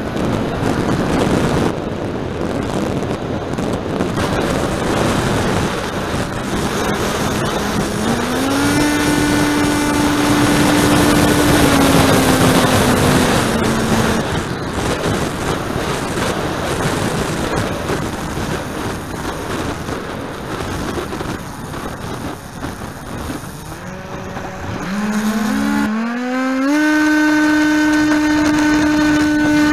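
Small RC plane's motor and propeller heard from the onboard camera under heavy wind rush on the microphone. The motor tone rises in pitch about eight seconds in, falls away and drops out near fourteen seconds, then comes back and climbs again at about twenty-five seconds, holding steady.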